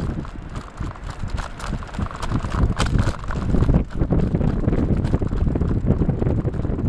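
Wind buffeting the microphone while a bicycle is ridden, mixed with quick, irregular clicks and rattles from the bike going over the path.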